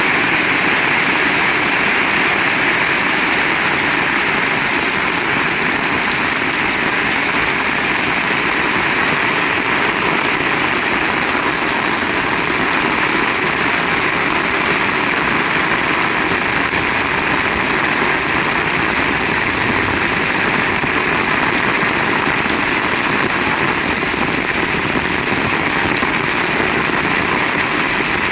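Heavy rain falling hard and steadily, a dense even hiss with no letup.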